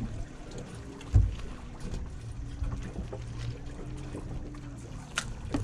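Small fishing boat rocking at sea: water against the hull and wind, over a low steady hum, with one sharp thump about a second in.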